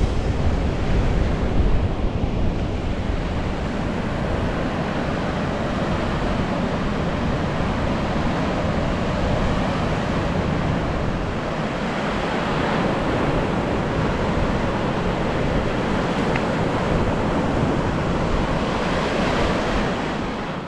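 Surf breaking and washing on a sandy beach, a steady rushing wash of waves, with wind rumbling on the microphone in the first few seconds; it fades out at the end.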